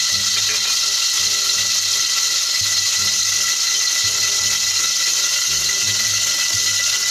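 Steady hiss from a gas stove burner under an aluminium wok with a little oil heating in it, with an irregular low rattle underneath.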